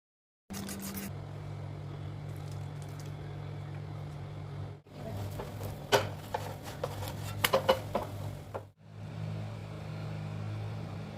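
Omelette cooking in a frying pan: a steady low hum under a faint sizzle, with a few sharp scrapes and taps of a spatula against the pan in the middle part.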